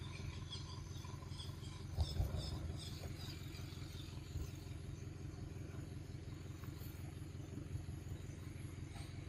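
Steady low outdoor rumble, with a few soft knocks about two seconds in and faint high chirps in the first few seconds.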